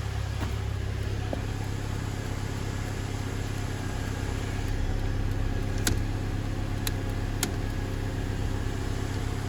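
2003 Chevy Cavalier's four-cylinder engine idling steadily, with a few short light ticks in the second half.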